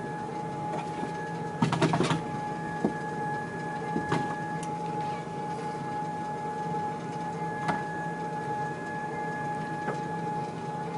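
Sole treadmill's motor running with a steady whine over a low hum, with a cluster of short clicks and knocks about two seconds in and a few single clicks later, as a kitten paws at the edge of the belt.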